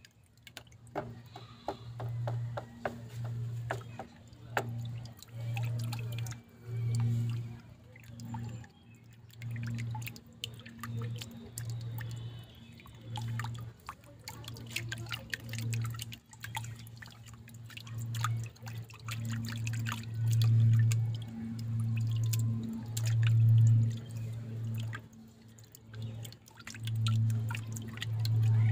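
Pencil drawing on paper over a clipboard: irregular scratching strokes and small ticks, with a low hum that comes and goes in short, uneven pulses.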